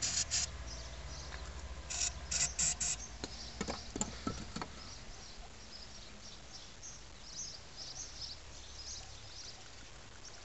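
Aerosol can of carburettor cleaner sprayed in short hissing squirts into the idle air control valve bore of the throttle body, cleaning carbon out of it. There are squirts right at the start and a quick run of four about two seconds in, followed by a few light knocks around four seconds.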